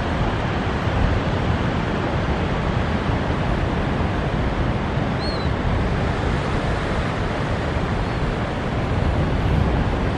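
Steady rushing noise of surf and wind on the microphone, with no distinct engine note.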